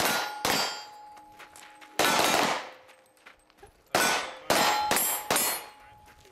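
Pistol-caliber carbine shots hitting steel targets: five sharp reports spaced unevenly, each followed by the clanging ring of the struck steel plate, which fades over about a second.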